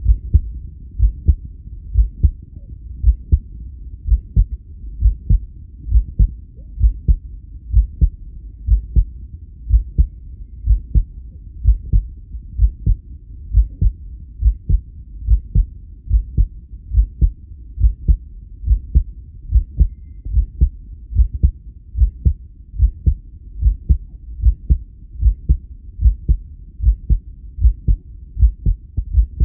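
Human heartbeat: a steady, even rhythm of paired lub-dub thumps, about one beat a second.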